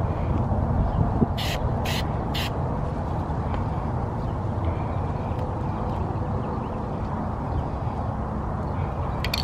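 Aerosol spray can being shaken, its mixing ball giving three sharp rattling clicks about half a second apart, over a steady low rumble of background noise.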